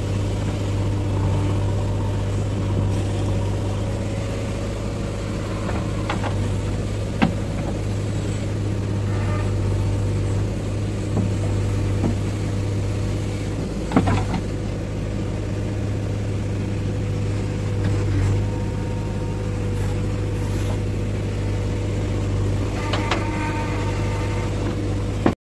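JCB 3DX backhoe loader's diesel engine running steadily under load while the backhoe digs a trench and dumps soil, with a few sharp clanks of the bucket and arm, the clearest about a third of the way and halfway through.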